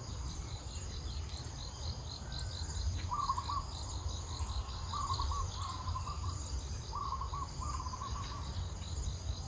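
Insects chirring in quick, steady high-pitched pulses, with a bird giving short trilled calls about three seconds in and then every couple of seconds. A constant low rumble runs underneath.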